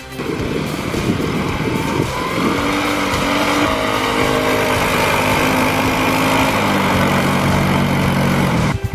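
Snowmobile engine running under load, its pitch rising about two seconds in and then dropping in steps. The sound cuts off abruptly just before the end.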